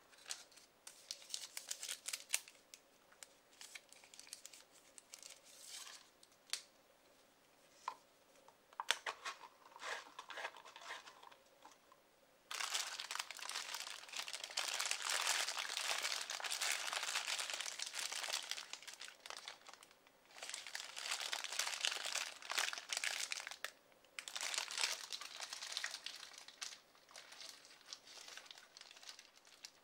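Paper food wrapper crinkling and rustling as it is handled around a burger. It starts with scattered light rustles and taps, then about halfway through turns into long, dense stretches of crinkling with short pauses.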